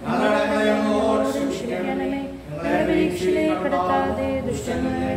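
A hymn sung unaccompanied, a man's voice holding long notes, with a short break for breath about two and a half seconds in.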